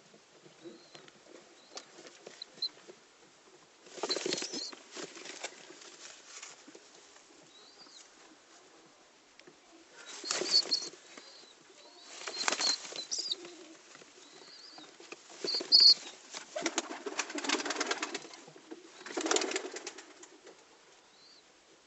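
Young Pakistani high-flyer pigeons flapping their wings in five bursts of a second or two each, with faint short high chirps between.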